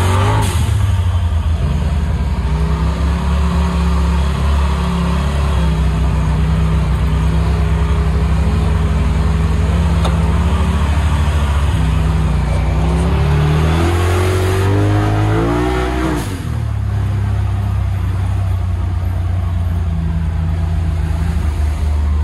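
Polaris RZR Pro XP Turbo side-by-side's turbocharged twin-cylinder engine running under throttle on the trail, its revs rising and falling steadily. Well past halfway the revs climb, then drop away sharply for a moment and build again.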